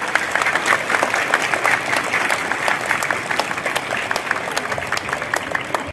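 Large crowd of schoolchildren applauding: dense, steady clapping that cuts off suddenly at the end.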